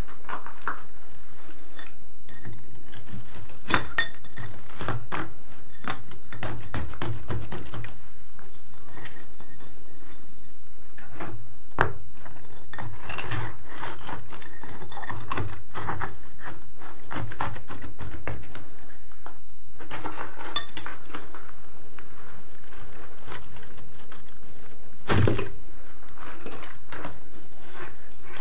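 Broken chunks of old concrete floor screed being handled and shifted, knocking and clinking against each other with gritty scraping of rubble and sand; a few sharper knocks stand out, the loudest near the end.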